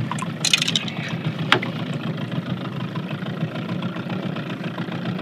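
Boat's outboard motor idling with a steady low hum. A short splash about half a second in and a sharp click about a second later.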